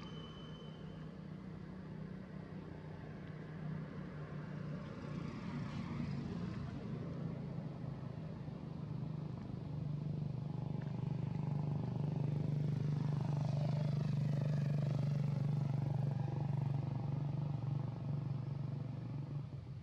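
A motor engine running steadily with a low hum that grows louder about halfway through and drops off near the end.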